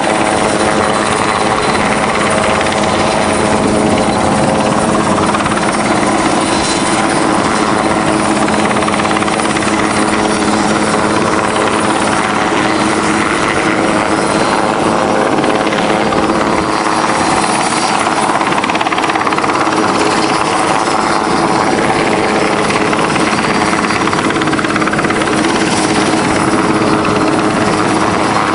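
Large helicopter hovering overhead: steady, loud rotor and turbine noise with a constant hum running under it.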